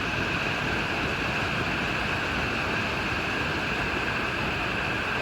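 Creek water falling over rocks: a steady, even rush with no breaks.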